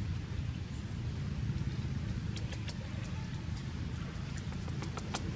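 Steady low rumble of an engine running, with a few faint sharp clicks.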